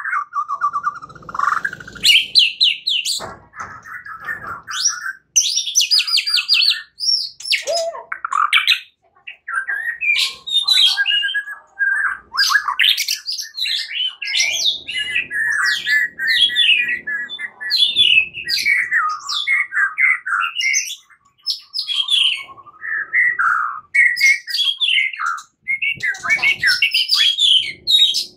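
White-rumped shama singing a long, varied song of quick whistles, sliding notes and fast trills, with only brief pauses.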